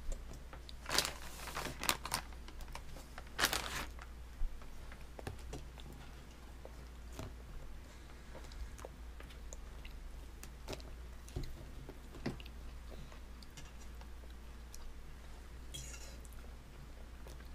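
A baby handling battered fish on a plastic high-chair tray: scattered light taps and clicks, with louder rustling scrapes about one and three and a half seconds in, over a low steady hum.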